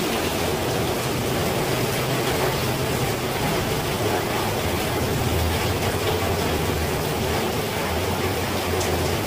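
Steady rain: an even hiss with a low rumble underneath.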